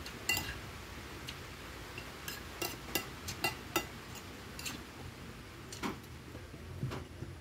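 Metal spoon and fork clinking and scraping against a plate of rice while eating: about ten light, irregular clinks.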